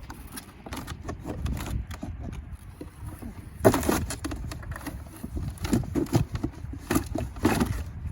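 Handling noise while unpacking a chainsaw from its box: irregular rustling, scraping and clicks, with a sharper knock about four seconds in and two more near the end.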